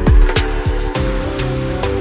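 Background music: a beat of regular drum hits that gives way to held chords about halfway through.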